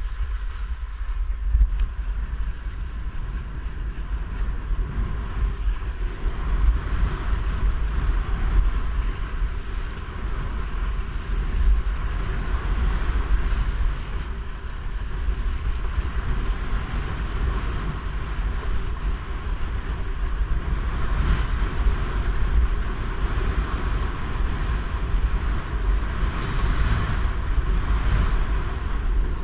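Wind buffeting the microphone of a rig-mounted camera on a windsurfer under way, a heavy low rumble, over the steady hiss of water rushing past the board. The hiss swells a little several seconds in and again near the end.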